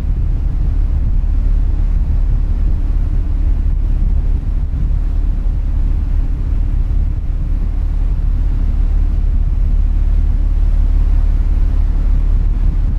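Steady low rumble of a ferry under way, with wind buffeting the microphone.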